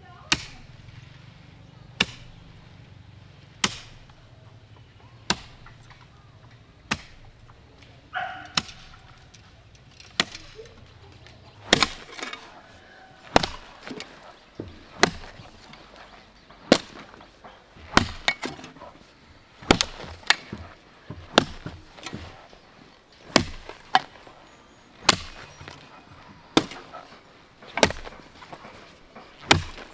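Repeated chopping: sharp strikes of a hand tool on wood, about one every second and a half, coming closer together and sometimes in pairs in the second half.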